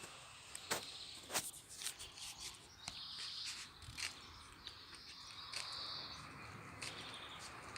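Outdoor ambience with insects buzzing in bursts of about a second, and scattered sharp clicks.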